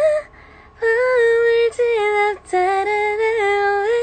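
A young woman's voice singing unaccompanied, holding long notes that step up and down between pitches, with a short breath about half a second in and brief breaks between notes.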